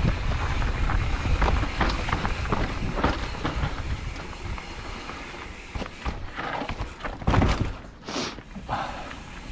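Mountain bike riding over a rough dirt trail: tyres rolling over dirt and dry leaves, with the bike rattling and knocking over bumps over a low rumble of wind on the microphone. A few harder jolts come near the end.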